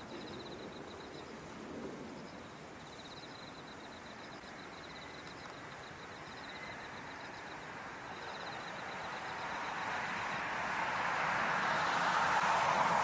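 Airbus A350-900 airliner on final approach, the rushing sound of its Rolls-Royce Trent XWB engines swelling steadily louder over the last five seconds as it nears.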